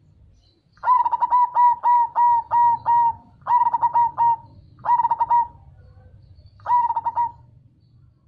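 Zebra dove (perkutut) cooing its song: four phrases of quick, evenly repeated notes, the first the longest, about two seconds, and the others short. A faint low hum runs underneath.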